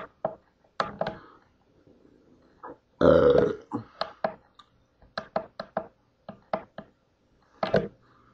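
A person burps loudly about three seconds in, one rough, low burp lasting about half a second. Scattered sharp clicks at a computer come before and after it.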